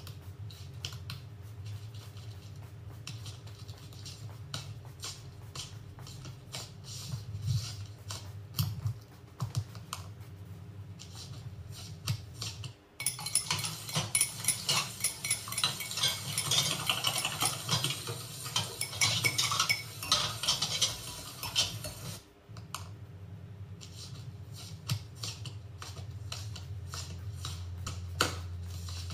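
Scattered light clicks and clatter, with a dense crackling rustle in the middle that starts and stops abruptly, over a steady low hum.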